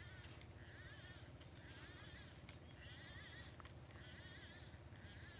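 Faint riverside ambience: a short, wavering animal call repeated about once a second over a steady high insect drone.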